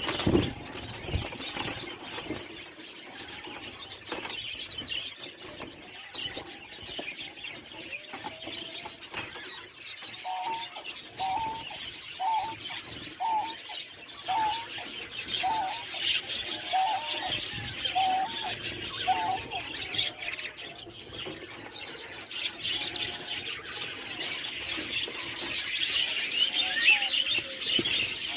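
Doves cooing, a run of about nine short notes roughly a second apart, over steady chirping of small birds.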